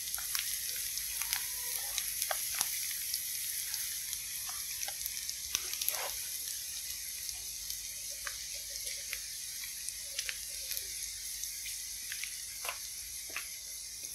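Oil sizzling in a frying pan as vegetarian mock mackerel pieces shallow-fry with ginger strips, shallots and chili, a steady hiss with scattered sharp crackling pops. The fish is being fried on until it turns golden and crisp.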